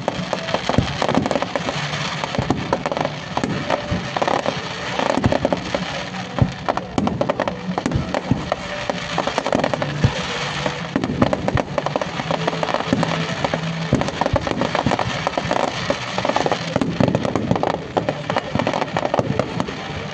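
Fireworks display going off without pause: a dense run of crackles and bangs, with music playing underneath.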